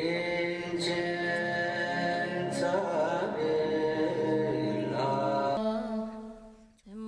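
Chanting voices over sustained musical tones. About five and a half seconds in, this gives way to a steadier drone, which drops out briefly near the end before the sound comes back.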